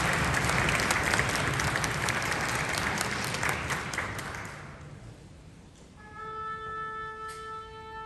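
Audience applauding, dying away about five seconds in. About a second later one steady held note begins and sustains: the orchestra's tuning A.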